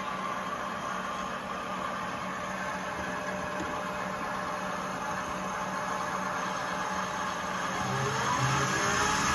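Metal lathe running steadily with its motor hum, a steel bar spinning in the chuck. Near the end a center drill in the tailstock starts cutting into the face of the bar, adding a rising whine and a little more loudness.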